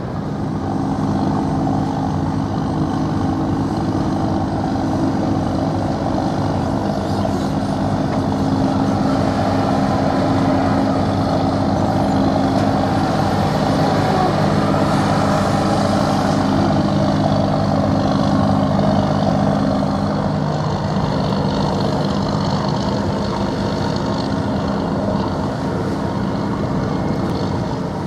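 Steady low drone of a passing ship's diesel engine, with several even engine tones that shift slightly about two-thirds of the way through.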